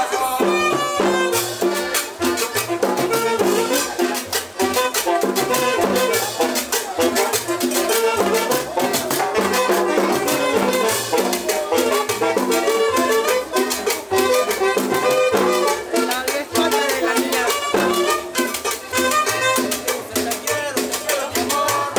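Live cumbia band playing, with saxophones and hand-played congas over a steady dance beat.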